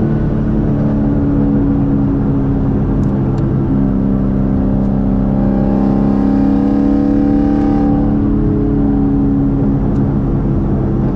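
Sixth-generation Chevrolet Camaro 1LE, with full bolt-ons on an E85 tune, running steadily at highway cruising speed, heard from inside the cabin. The engine note rises a little about five seconds in and then holds, with no hard pull.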